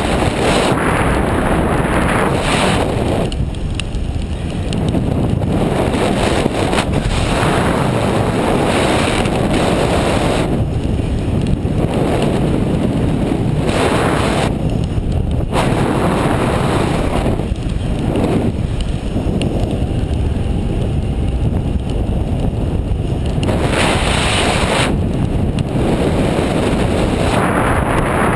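Wind rushing over a camera microphone in paragliding flight: a loud, steady rush that swells and fades every few seconds.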